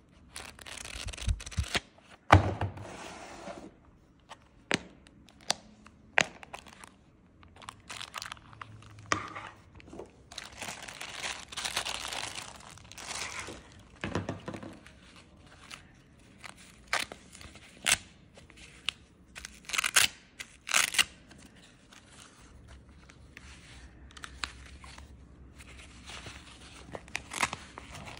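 Handling noise from unpacking a wrist blood pressure monitor: rustling and crinkling of paper and plastic packaging, with scattered sharp clicks and knocks, the loudest about two seconds in, as the monitor is taken out and its fabric cuff is wrapped around the wrist.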